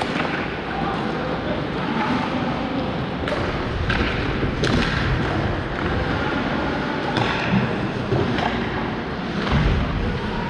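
Ice hockey play in a large indoor rink: a steady hiss of rink noise and skates on ice, with several sharp clacks of sticks and puck and a dull thud near the end.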